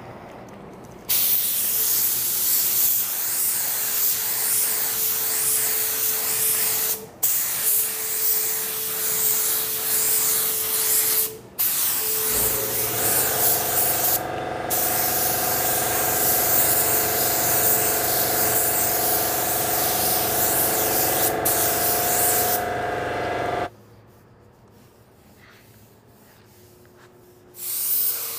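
Gravity-feed LVLP spray gun hissing with compressed air as it dusts a light blending coat of automotive basecoat onto a car door. It runs in long trigger pulls with brief breaks, and a steady whistling tone under the hiss rises and stops with it. The spraying stops about 24 seconds in and starts again near the end.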